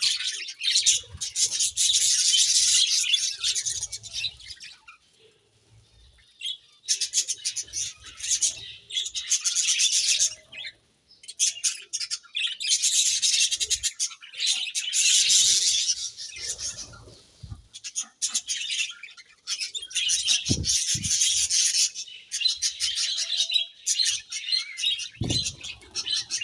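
A colony of budgerigars chirping and chattering in dense, rapid bouts, with a couple of short lulls. A few dull low bumps come in the second half.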